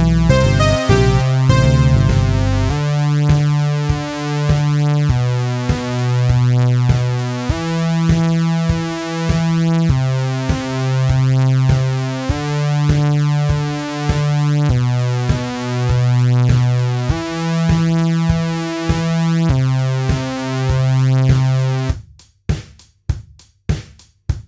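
Electronic synthesizer music: a busy run of quick notes gives way to long sustained synth chords over a bass line that steps to a new note about every second. Near the end the chords stop and only a regular beat of short, sharp drum-machine hits remains, about two a second.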